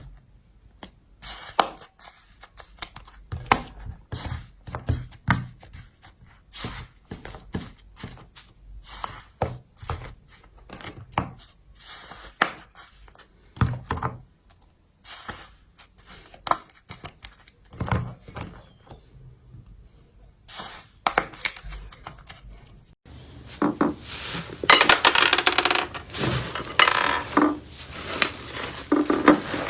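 Slime being squeezed and poked by hand, giving a run of sharp sticky clicks and pops with short gaps between them. Near the end it changes to a denser, continuous crackling.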